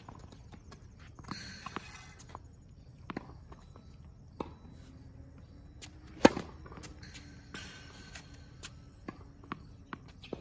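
Tennis serve practice: a tennis ball bounced several times on a hard court, then one loud, sharp strike of racket on ball about six seconds in, followed near the end by a quick run of bounces as the next serve is readied.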